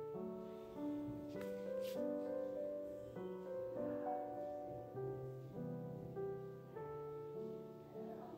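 Soft background piano music, a melody moving note by note over held chords.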